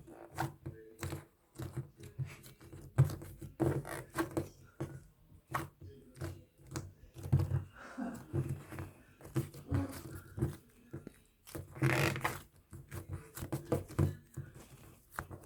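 Irregular knocks, taps and rustling, as of things being handled at close range.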